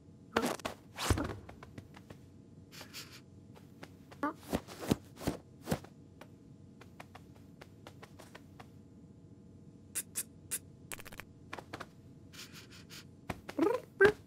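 Cartoon foley of a cat clambering about on a sofa: scattered scratches and scrapes of claws on upholstery and soft thumps, with a few short cat-like vocal noises near the end.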